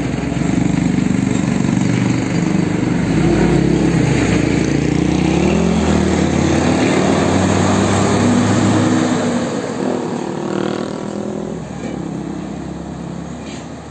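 A tour bus's diesel engine pulling away from a standstill close by, its pitch rising and falling as it picks up speed. About ten seconds in it starts to fade as the bus goes off down the road.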